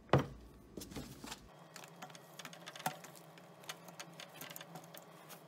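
Plastic wheel and metal frame of a three-wheel pet stroller being fitted together by hand during assembly: a sharp click just after the start as the parts knock together, then a string of small irregular clicks and rattles as the frame is handled.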